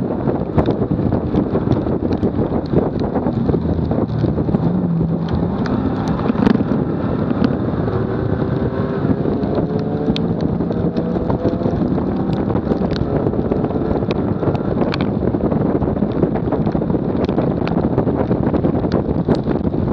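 Wind buffeting a low bumper-mounted camera at track speed, over the car's engine and tyre-on-tarmac noise, with scattered sharp ticks. About eight seconds in a faint engine note rises as the car accelerates out of a corner.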